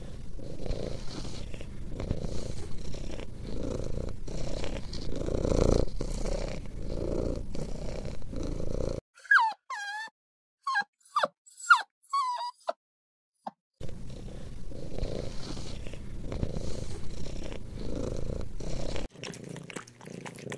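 Domestic cat purring in a steady rhythm. About halfway through the purring gives way to a string of short, high whimpers from puppies, each bending up and down in pitch, then the purring returns.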